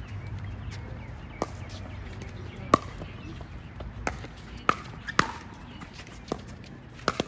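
Pickleball paddles striking a hard plastic ball in a rally: a string of sharp pops, irregularly about a second apart, the loudest nearly three seconds in.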